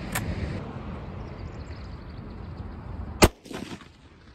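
A single gunshot from a bolt-action 8mm Mauser rifle firing a 1975 Romanian surplus round, about three seconds in and by far the loudest sound. Before it, a short click near the start as the bolt is worked, over steady low background noise.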